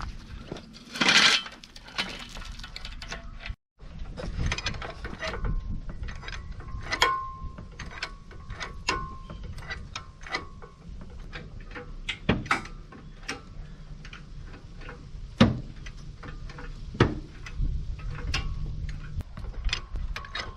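Chains and a homemade frame puller clinking and clicking as they are rigged and tightened to pull a bent truck frame rail, with a loud clatter about a second in and irregular metallic clicks and knocks after it.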